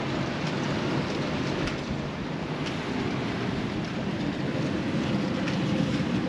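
Strong wind and rain making a steady rushing noise, with a few faint scattered ticks.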